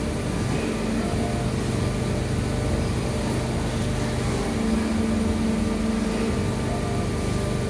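Plastic injection moulding machine running: a steady mechanical hum with several held low tones, one of which swells for about two seconds past the middle.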